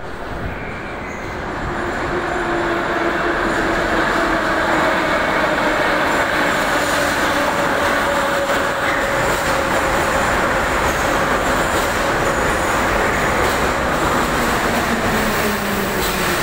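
Metro train pulling into an underground station. A rumble of wheels on rail builds over the first few seconds and then holds loud, with a faint whine that slowly falls in pitch as the train runs in.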